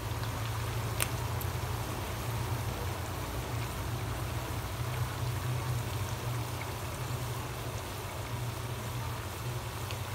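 Crinkle-cut chips frying in hot oil in a wok: a steady sizzling and bubbling, with one sharp pop about a second in. A low steady hum runs underneath.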